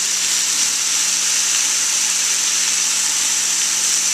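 Ground beef sirloin sizzling in a hot frying pan, a steady, even hiss, with a faint low hum underneath.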